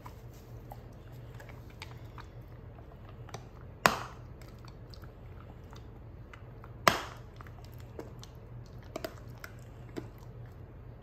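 A wolfdog crunching a hard stick-shaped dog treat between its teeth: two loud cracks about four and seven seconds in, with softer chewing clicks between them. The dog breaks the stick up rather than licking it soft.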